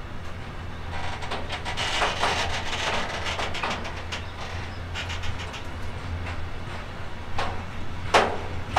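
A train rolling past on the track, its wheels clicking over the rail joints. A few louder knocks come near the end, over a steady low hum.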